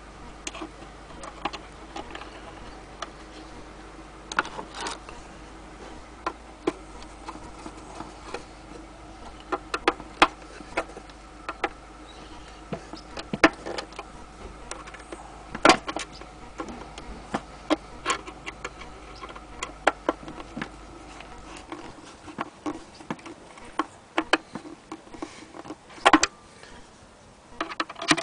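Irregular clicks and ticks from a vintage Columbia gramophone's mechanism being worked, over a faint steady hum.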